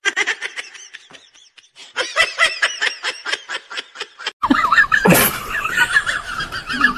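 A cat chattering: two fast runs of short, evenly repeated chirps, about eight a second, that sound like snickering laughter. About four and a half seconds in they stop and a wavering, voice-like sound takes over.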